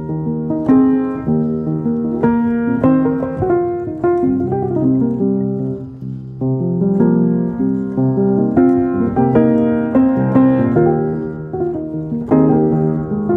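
Background music led by piano: a steady run of struck notes and chords.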